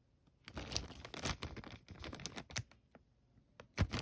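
Crinkling and rustling of plastic packaging as model kit parts are handled, followed by a single sharp knock near the end.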